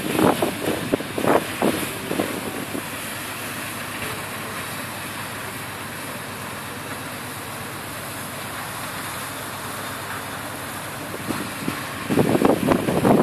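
Steady rushing noise of a large river cruise ship passing close under way. Wind buffets the microphone in loud gusts during the first second or two and again near the end.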